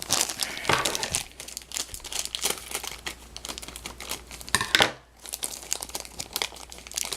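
Plastic packaging crinkling as it is handled and pulled open, an irregular crackling with a short pause about five seconds in.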